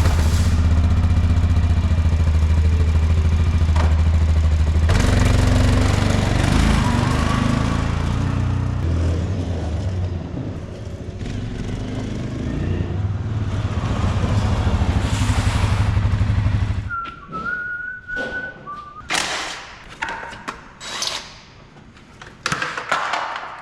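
ATV engine running just after starting: steady at first, with the revs varying from about five seconds in. It shuts off about two-thirds of the way through, followed by a short high steady tone and a few knocks.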